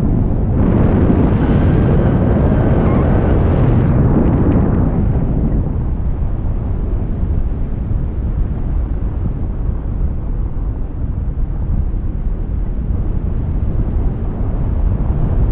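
Wind rushing and buffeting over the microphone in flight under a paraglider. It is a steady low rumble, with a stronger gust swelling in about a second in and easing off after four seconds or so.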